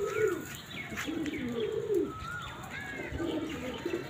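Domestic fancy pigeons cooing, with low rolling calls repeating several times, and higher, thinner bird chirps mixed in above them.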